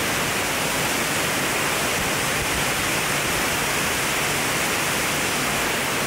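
Waterfall pouring into its pool: a steady, even rush of falling water.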